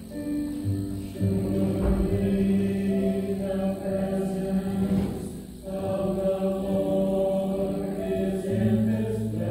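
Slow offertory music of long held notes and chords, with a short break between phrases about halfway through.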